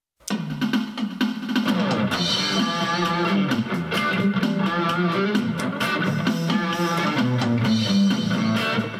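Electric guitar played through its bridge-position Chinese Alnico pickup, picking out a melodic theme over a drum-kit backing with a steady beat. The music starts suddenly a moment in.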